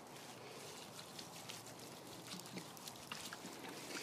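Liquid bio-inoculant poured from a plastic jug, pattering faintly onto a bin of warm biochar pieces.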